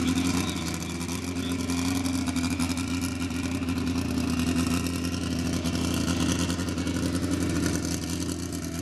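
ATV engine running at a steady speed.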